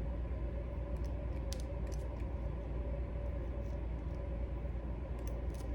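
Scissors snipping at a wig cap's ear tab, a few faint clicks about a second and a half in, again just after, and near the end, over a steady low background hum. The shears are struggling to cut.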